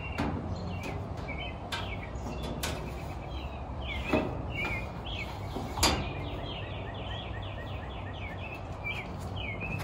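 Sheet-metal panels of a gas grill's cabinet base knocking and clanking as they are fitted together by hand, with two sharper knocks about four and six seconds in. Birds chirp throughout over a steady low background noise.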